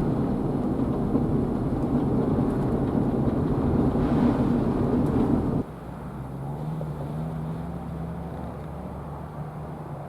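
Strong wind buffeting the microphone with a loud, even rumble that cuts off suddenly about halfway through. A vehicle engine then runs steadily and more quietly, its pitch rising a little.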